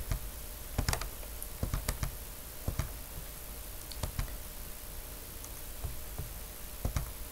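Irregular clicks of a computer keyboard and mouse, a few quick clicks at a time with pauses between.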